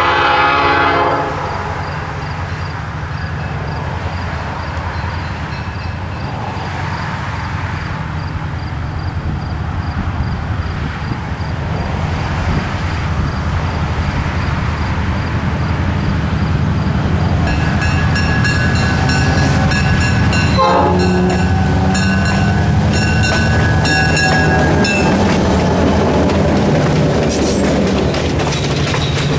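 A diesel locomotive's horn ends a loud blast about a second in, then the engine's steady rumble builds as the passenger train approaches. About two-thirds through the locomotive's warning signals sound again in broken tones, and near the end the coaches roll past close by.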